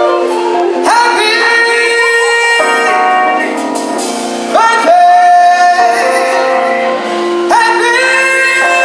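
Live band music with singers: lead and backing vocals over the band, with several held sung notes, one long steady note about five seconds in.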